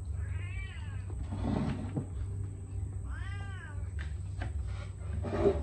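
A cat meowing twice, two drawn-out calls that rise and then fall in pitch, about three seconds apart, over a low steady hum. A short, louder sound comes near the end.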